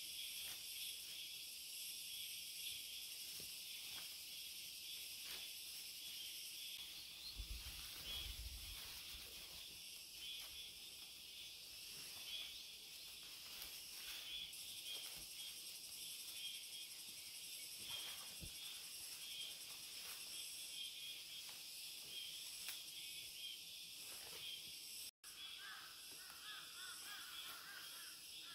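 Steady, faint chorus of insects droning in the forest, with scattered soft snaps, rustles and knocks as leafy branches are cut and laid down.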